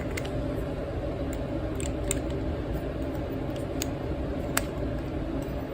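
A few faint, light clicks spread over a steady low background hum.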